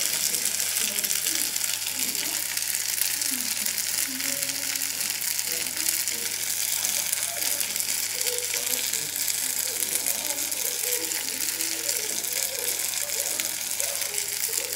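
Sliced sausages frying in a pan: a steady sizzling hiss.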